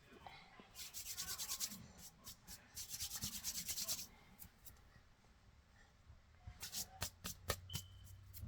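Cornstarch crunching and squeaking: two spells of rapid gritty crunching, about a second in and around three seconds in, then a string of separate sharp crunches near the end.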